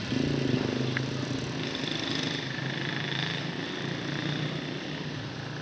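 A motor vehicle's engine running with a steady low hum that slowly fades. A thin high tone sounds for about a second and a half in the middle.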